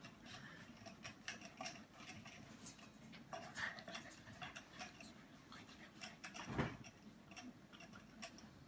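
Faint, irregular clicking and ticking as puppies lick and mouth the nipple spout of a cage water bottle, with a single dull bump about two-thirds of the way through.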